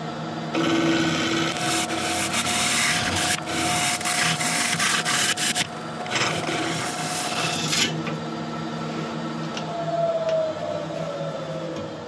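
Record Power Regent wood lathe running with a steady motor whine while a gouge cuts the spinning monkey puzzle blank, a rough shaving hiss from about half a second in until about eight seconds in. Near the end the motor whine falls in pitch as the lathe is slowed.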